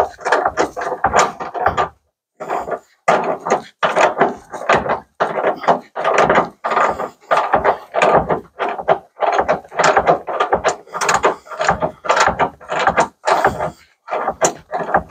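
Hand ratchet wrench clicking in quick, repeated strokes as the truck bed's mounting bolts are tightened, with a short pause about two seconds in.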